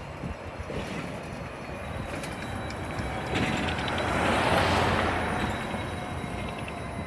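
Battery-electric city bus passing close by: its tyre and running noise swells to a peak about four and a half seconds in, then fades, with a faint high whine through the loudest part.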